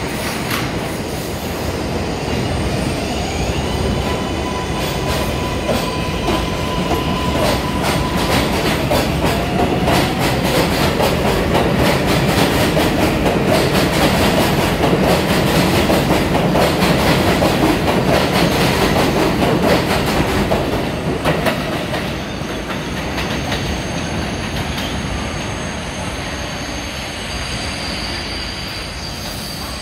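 R142A New York City subway train pulling out of an elevated station. Its motors give a rising whine as it starts off, then the wheels rumble and clatter over the track, loudest about halfway through as the cars go by, fading as the train moves away.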